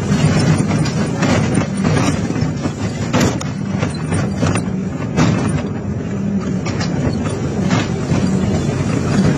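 An excavator's diesel engine runs steadily under hydraulic load while its hydraulic scrap shear cuts and tears steel plate. Irregular sharp metal clanks and crunches sound throughout, the loudest about three seconds in.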